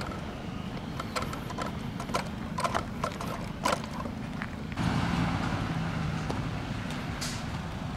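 Footsteps crunching irregularly over sandy, gravelly ground, over a steady low rumble of wind on the microphone that gets louder from about five seconds in.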